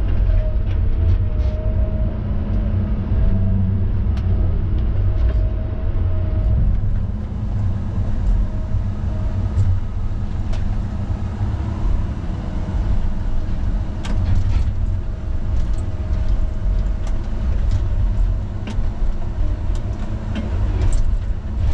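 Heavy diesel equipment engine running steadily, a continuous low rumble with a faint steady whine above it and a few light clicks.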